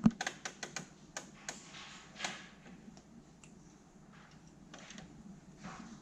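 A quick run of light clicks and clacks from kitchen things being handled, bunched in the first two seconds, then only faint room sound.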